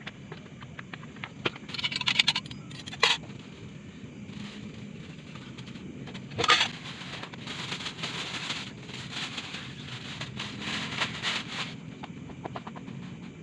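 Crinkling and rustling of handled packaging with scattered sharp clicks and scrapes, the sounds of someone eating a meal and handling its wrappers and utensils. The rustling comes in stretches, loudest about two seconds in, at about six and a half seconds, and for several seconds near the end.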